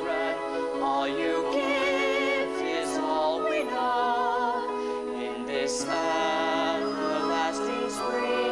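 Live stage-musical music: sustained melody notes with vibrato over held accompanying tones.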